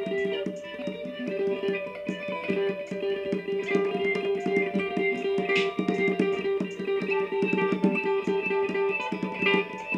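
Live band jam led by electric guitar: a fast, evenly picked repeating figure with held higher notes changing over it.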